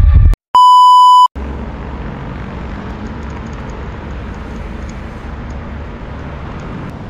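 The end of a music intro cuts off, then comes a loud, steady electronic beep lasting under a second. It gives way to a steady low rumble of wind and road noise while riding a bicycle along a city street with car traffic.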